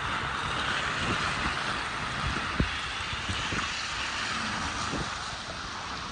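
Steady hiss of city traffic on a wet, snowy street, with a few low knocks, one sharper about two and a half seconds in.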